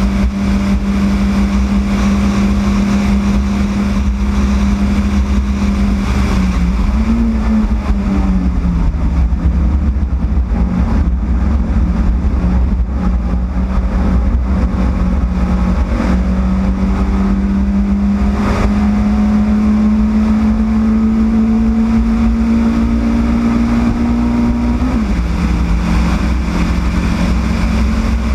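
Yugo race car's four-cylinder engine running hard at high revs. The pitch dips about seven seconds in, climbs slowly through the second half, then drops sharply near the end as it changes gear up. A heavy low rumble of wind and road noise runs underneath.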